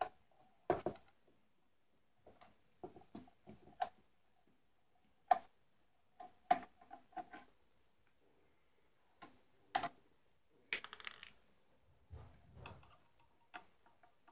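Irregular clicks and taps of a small screwdriver and the plastic and metal parts of a dome security camera being worked on and handled during disassembly. A short scraping sound comes about 11 seconds in, followed by a low rumble as the parts inside the dome are gripped and twisted.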